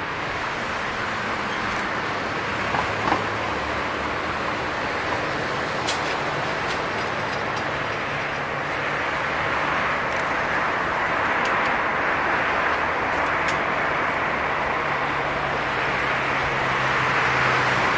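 Airbus A340-300's four CFM56 turbofan engines running at taxi power as the airliner turns onto the runway: a steady jet rush and whine that grows gradually louder in the second half.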